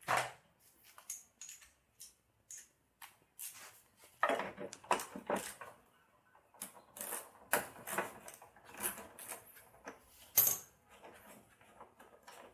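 Socket ratchet clicking in short runs while a 10 mm bolt is loosened, mixed with scattered metal clicks and taps. A sharp click about ten seconds in is the loudest.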